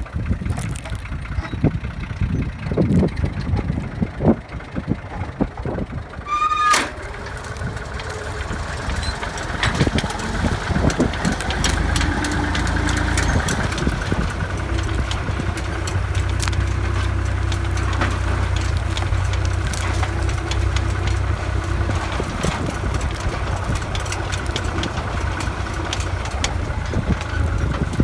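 Tractor engine running steadily, a little louder after about ten seconds. Knocks and wind noise come in the first few seconds, and a brief rising squeal about six seconds in.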